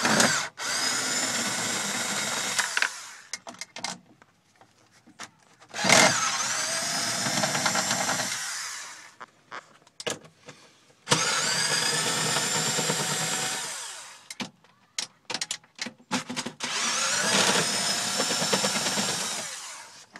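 Cordless drill with a 10 mm socket running in four bursts of about three seconds each, turning out the subwoofer's mounting screws. Each burst spins up with a rising whine, then holds steady. Short clicks and knocks come between the bursts.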